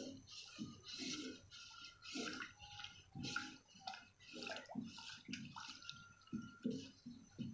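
Wooden spatula stirring a thick agar-agar and coconut-milk mixture in a metal pot on the stove, sloshing and scraping the pot in about two strokes a second.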